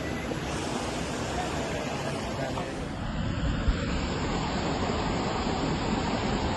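Steady rushing of the Ganges river's flowing water, with a short knock about 3.7 seconds in.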